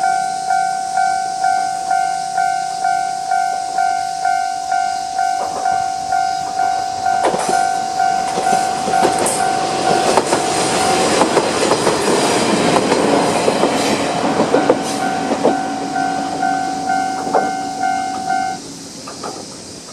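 Japanese level-crossing electronic warning bell ringing in steady pulses, about one and a half a second, while a two-car diesel railcar train (KiHa 28 and KiHa 52) passes over. The train's rumble builds, with wheels clicking over the rail joints, then fades, and the bell stops near the end.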